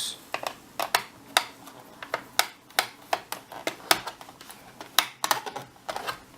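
Irregular light clicks and taps, about three a second, from a jeweler's screwdriver and the plastic case of a laptop as the screws of the hard drive bay cover are worked loose.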